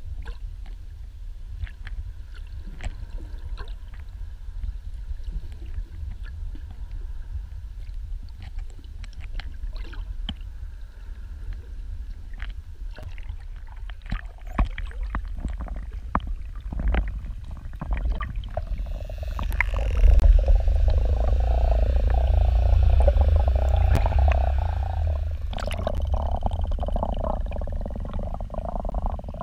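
Muffled underwater sound heard through a camera's waterproof housing: a low rumble with scattered sharp clicks. About two-thirds in it grows louder, with a wavering, warbling sound in the middle range that carries on almost to the end.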